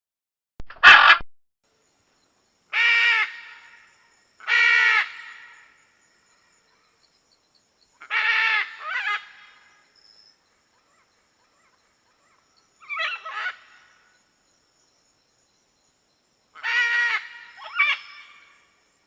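Macaws squawking: about seven loud calls, each under a second long, some in quick pairs, with pauses of one to three seconds between them.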